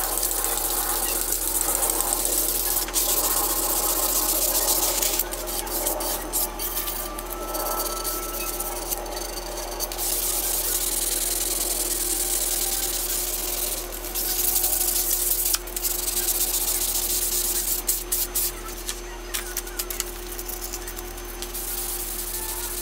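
Hand wet-sanding of an aluminium plate lubricated with WD-40: abrasive paper rubbing back and forth in scratchy, hissing strokes, in runs with brief pauses, over a steady low hum. The sanding deburrs the plate and smooths its surface.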